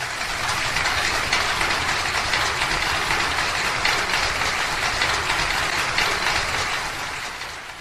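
Audience applauding, a dense patter of clapping that tapers off near the end.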